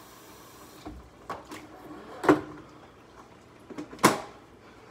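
A drip coffee maker being handled: a few light clicks, then two sharp plastic clacks, about two and four seconds in, the second as a hand works the machine's top lid. A faint steady hiss stops about a second in.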